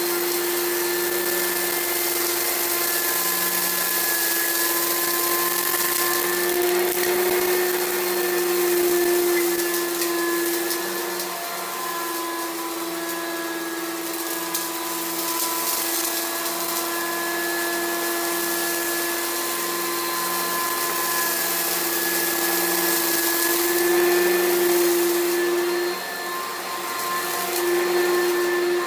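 Oreck XL Pro Plus upright vacuum cleaner running with a steady motor whine as it is pushed back and forth over carpet, sucking up scattered sand and debris, with occasional faint ticks.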